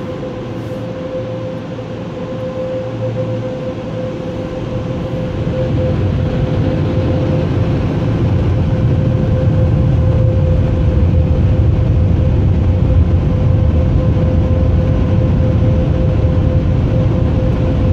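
Car wash air dryers blowing on a van, heard from inside the cabin: a steady whine over loud rushing air that grows louder about five seconds in, then holds.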